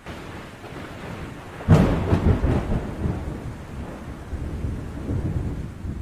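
Thunderclap about two seconds in: a sudden loud crack, then a rolling rumble that slowly fades, over a steady hiss of rain.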